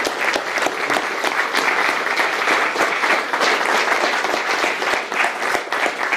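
Audience applauding: many hands clapping at once, steady and sustained.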